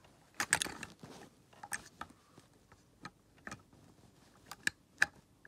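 Irregular small clicks and knocks of a metal replica Curotto-Can being handled and fitted onto the lift arms of a toy front-loader garbage truck, with a sharp loudest click near the end.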